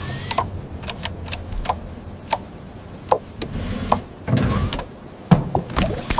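An irregular series of light, sharp clicks and taps, about a dozen, like small hard objects being knocked together, with a soft rustle about four seconds in.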